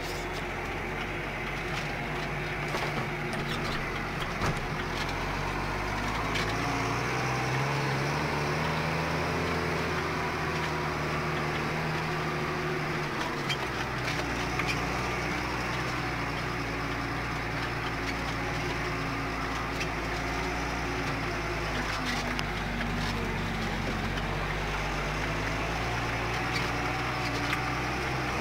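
New Holland T6050 tractor engine running under load, heard from inside the cab, with occasional rattles and knocks. The engine note rises about seven seconds in, drops back a few seconds later and rises again near the end.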